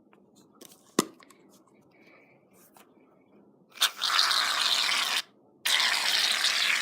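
Aerosol can of shaving cream spraying foam in two long hisses of about a second and a half each, with a short pause between. A single sharp click comes about a second in.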